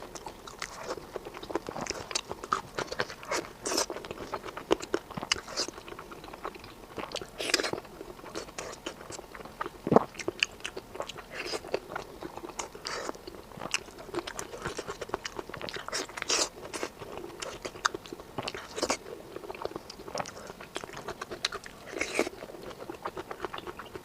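Close-up eating sounds: biting into and chewing cola-braised chicken wings stuffed with shrimp paste, a run of short irregular mouth clicks and smacks, with one sharper click about ten seconds in.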